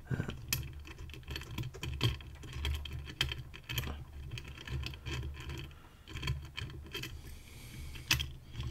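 Small metal lock parts being handled: irregular light clicks and scrapes as a brass tailpiece is worked onto the back of a Bowley Rotasera disc-detainer lock while a tool pushes down its locking pin, over a low hum.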